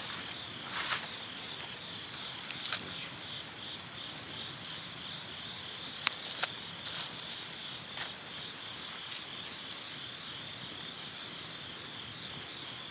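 Insects chirring steadily in a continuous high chorus, with a few sharp clicks or pops from the campfire area now and then.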